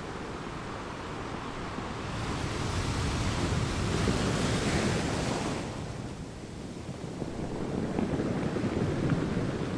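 Ocean surf breaking and washing up the shore. One wave surges in about two seconds in, and its hiss cuts off sharply about six seconds in. A second surge swells near the end.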